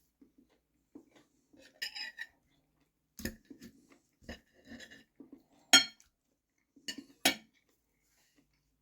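Cutlery and dishes clinking: an irregular run of light clinks and knocks, the sharpest a little past the middle and another near the end.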